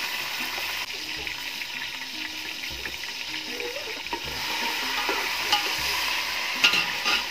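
Chopped tomatoes and onions frying with a steady sizzle in a metal pot over a wood fire, stirred with a metal spoon. A few sharper clinks of the spoon against the pot come near the end.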